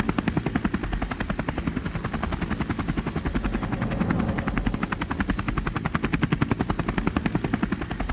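Propeller aircraft engine sound effect: a steady, rapid, even pulsing chop of a spinning propeller.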